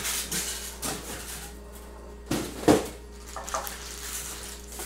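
Cardboard box and plastic-wrapped parts being handled, with rustling and scraping and one sharp knock a little past the middle.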